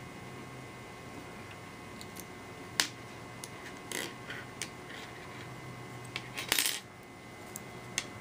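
A few small metallic clicks and clinks as a steel cap screw and hex key are handled against an aluminium mounting block on a bench. There is one sharp click about three seconds in, lighter ones a second or so later, and a cluster of clinks around six and a half seconds.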